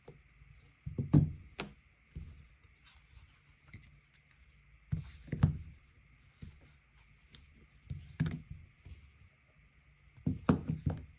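Smartphones being handled on a hard surface: irregular rubbing and knocks in four bursts, the last a quick run of several taps.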